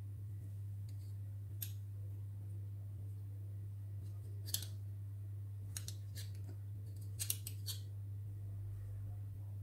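Metal spoon scraping and scooping firm ice cream out of a tub: a handful of short scrapes, several close together past the middle, over a steady low hum.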